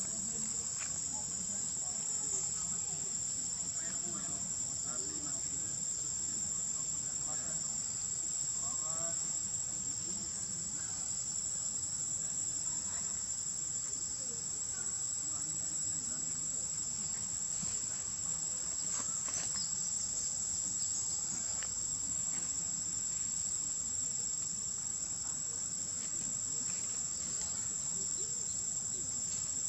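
Steady high-pitched insect chorus of crickets or cicadas, with faint short chirps now and then.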